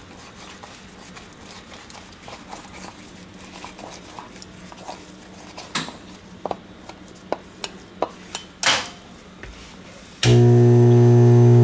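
Metal spatula stirring and scraping mounting stone in a rubber mixing bowl, with several sharp knocks and taps against the bowl past the halfway point. Near the end a dental lab vibrator switches on with a loud steady hum as the bowl is held on it to shake the air bubbles out of the stone.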